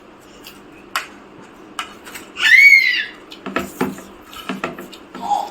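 A child's short, high-pitched squeal that rises and then falls, about halfway through, among light clinks of cutlery and dishes.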